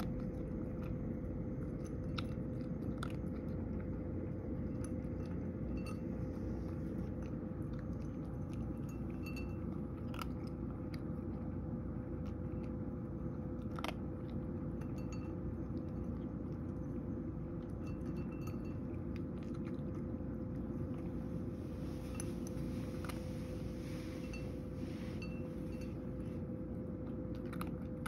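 A cat crunching dry kibble from a bowl: irregular crunches and sharp clicks of teeth on the pellets, over a steady low hum.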